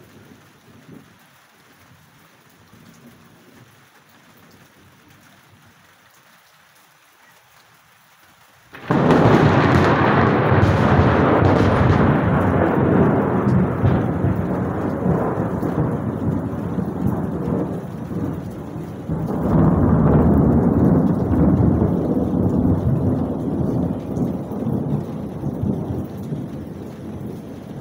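Light rain, then about nine seconds in a sudden, loud thunderclap that rolls on as long rumbling thunder. The rumble swells again a little past halfway and slowly fades.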